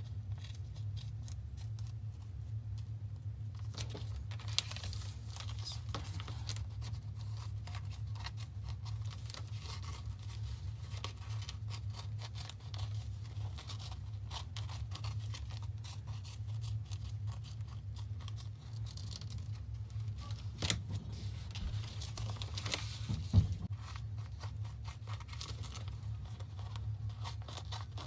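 Small scissors snipping through packing-tape-covered paper stickers, with the plastic sheet crinkling as it is turned and handled. A steady low hum runs underneath, and there are a few sharper clicks, the loudest about 23 seconds in.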